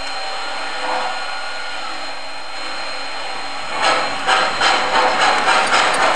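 MTH RailKing Blue Comet O-scale model steam train running on its track: a steady hiss, then from about four seconds in a regular beat of two or three a second that grows louder as the locomotive comes closer.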